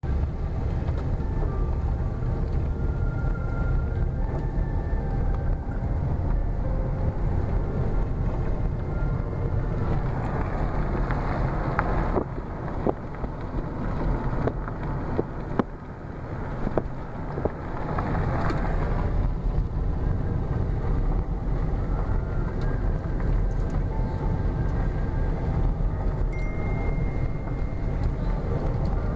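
Car driving on a gravel dirt road, heard inside the cabin: a steady low rumble of tyres and road noise. A scatter of sharp clicks comes about halfway through.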